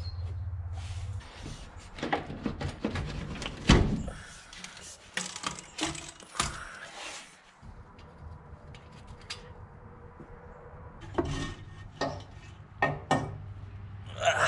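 Hand tools and metal engine parts clanking and knocking as a turbocharger and its intake pipe are unbolted and lifted off an engine, with a socket ratchet clicking on the bolts. The loudest knock comes about four seconds in, and a low steady hum stops after about the first second.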